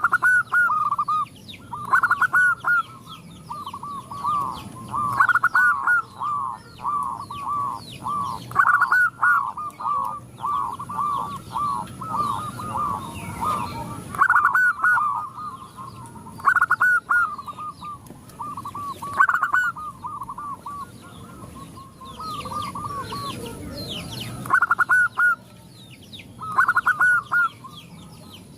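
Several zebra doves (perkutut) cooing in turn, each phrase a quick run of short rolling notes, one bird after another, with hardly a pause. Fainter high chirps of smaller birds sound behind them.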